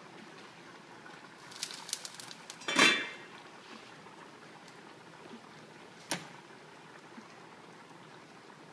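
A domed stainless-steel pan lid and utensils clattering on the stovetop: a few light clicks, then one loud ringing metal clank about three seconds in and a sharp click around six seconds. Underneath, chicken in tomato sauce simmering faintly in the frying pan.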